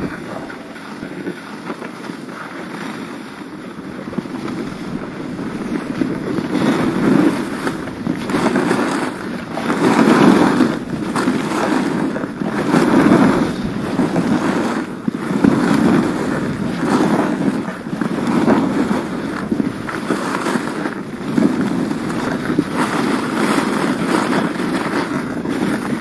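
Alpine skis scraping and carving over packed, cut-up piste snow in linked turns, the rush swelling with each turn roughly every two seconds, with wind buffeting the camera microphone. Quieter for the first few seconds, louder from about six seconds in once the skis are running.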